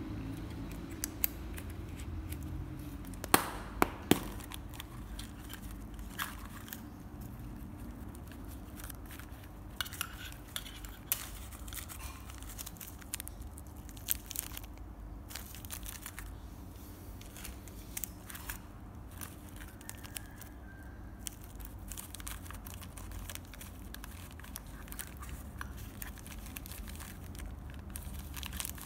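Unboxing handling noise: a paper gift box and a round metal cookie tin being handled, with clear plastic zip bags of cookies crinkling. Scattered sharp clicks and taps run through it, the loudest few about three to four seconds in.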